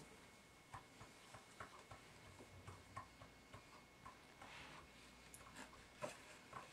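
Near silence in a small room: faint room tone with scattered small clicks, and a soft rustle about four and a half seconds in.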